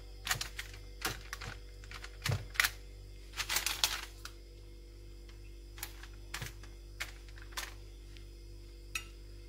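Wooden skewers of fat-wrapped liver being set down on a metal wire rack: light irregular clicks and taps, bunched in the first half and sparser later, over a faint steady hum.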